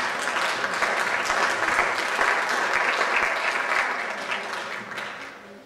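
Congregation applauding, the clapping dying away over the last second or so.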